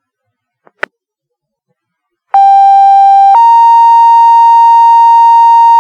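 Two-tone sequential paging alert over a fire dispatch radio channel: a steady tone for about a second, then a slightly higher steady tone held about three seconds, the tone-out that sets off the volunteer firefighters' pagers for a second page. A short radio click comes just under a second in.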